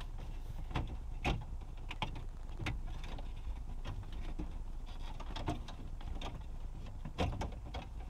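Scattered clicks and knocks of the old head-unit bracket being eased out of the car's centre dash by hand, with a denser run of knocks about seven seconds in.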